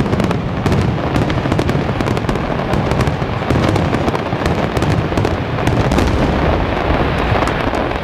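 Aerial fireworks shells bursting in a dense, continuous barrage: many sharp reports overlap one another over a steady low rumble, with no break.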